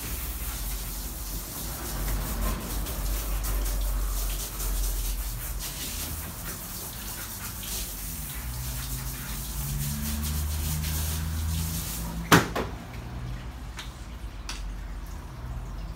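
Water spraying from a grooming tub's hand shower onto a dog being bathed: a steady hiss that stops about twelve seconds in. A single sharp knock follows right after.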